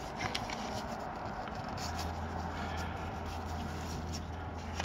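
Hockey trading cards being handled and slid across one another, a faint rustle with soft light clicks. A low steady hum comes in about two seconds in.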